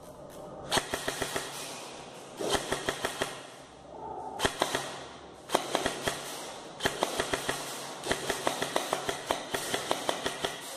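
Airsoft rifle firing a series of short full-auto bursts, several in a row with brief pauses between, each a rapid string of sharp clicking shots.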